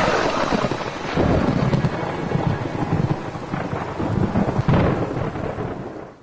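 Thunderstorm: rain falling with rolling thunder, a crack right at the start, another about a second in and a loud clap near the end, then the whole sound fades out.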